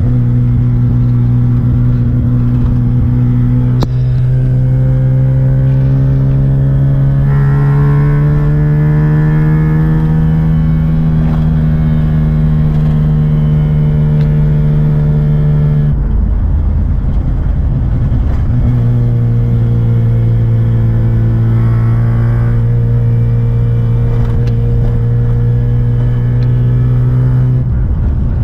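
Van engine under way, heard from inside the cab: its note climbs slowly as it accelerates over the first ten seconds or so, breaks off for a couple of seconds around the middle, then comes back and runs steadily before changing again near the end.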